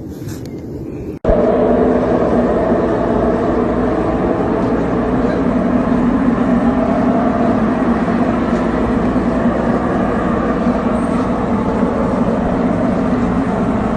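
A loud, steady low drone that begins abruptly about a second in and holds unchanged.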